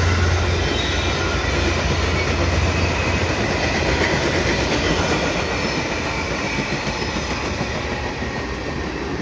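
VIA Rail F40PH-2 diesel locomotive, an EMD 16-645 two-stroke V16, passing close with a low engine drone that weakens over the first second or two. Its Renaissance coaches then roll by with steady wheel-and-rail noise that slowly fades toward the end.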